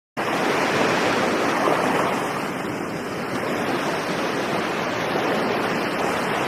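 Steady rushing of sea waves and wind, cutting in suddenly at the start and swelling gently.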